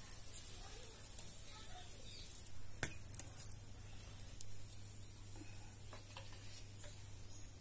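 Cooking sounds: a few light clinks of a utensil against a pan, about three seconds in, over a faint steady hiss and a low hum.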